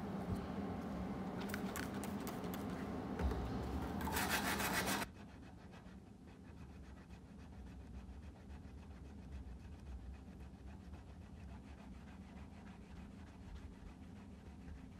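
Hand file scraping along the serrated spine of a steel knife blade in repeated strokes. A louder, harsher scraping runs for the first five seconds and cuts off suddenly, leaving quieter, steady stroking.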